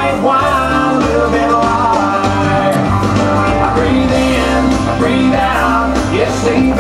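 Country dance music with a steady beat.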